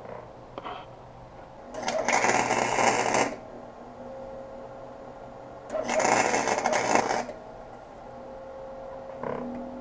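Arc welding: the welder crackles and buzzes in two bursts of about a second and a half each, with a quieter hum in between.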